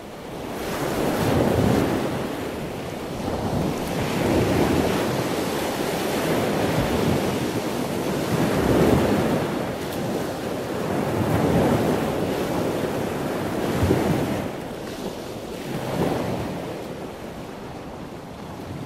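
Ocean surf: waves breaking and washing in, the rush of water swelling and easing every two to three seconds.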